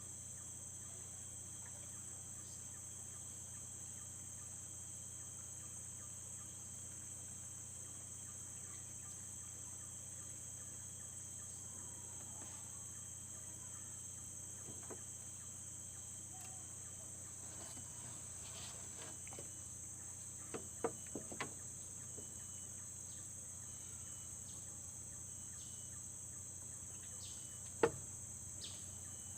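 Steady high-pitched insect chorus. A few sharp clicks and knocks come about two-thirds of the way in, and the loudest one comes near the end.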